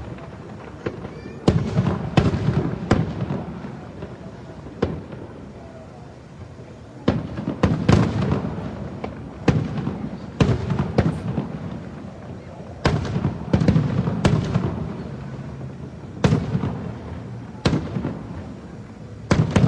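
Aerial fireworks shells bursting in a long run of booms and bangs, coming in clusters of several with short lulls between, each followed by a low rolling rumble.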